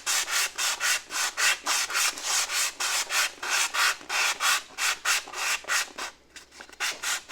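Hand sanding with sandpaper, quick back-and-forth strokes at about four or five a second over a fiberglass patch on a car's fender. The strokes pause briefly near the end, then a few more follow.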